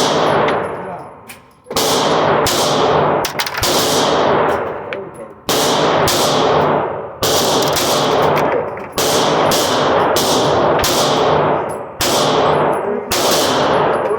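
Taurus G2C pistol being fired in a string of about a dozen shots, irregularly spaced half a second to a second and a half apart, each with a long ringing echo. The gun keeps firing without locking up.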